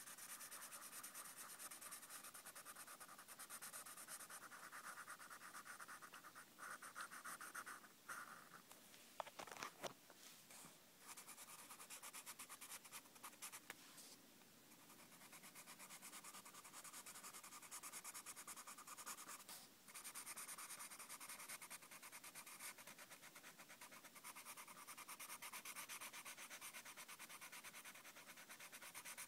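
Black felt-tip marker rubbing on lined notebook paper in quick back-and-forth colouring strokes, faint and scratchy, with a few short breaks.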